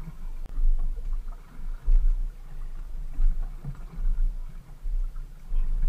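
Center-console fishing boat on open sea: low, uneven rumbling and buffeting as water works against the hull.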